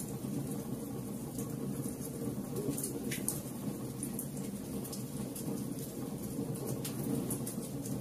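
Wood fire burning in a fireplace: a steady low rumble of flames with scattered sharp crackles and pops from the logs, a louder pop about three seconds in.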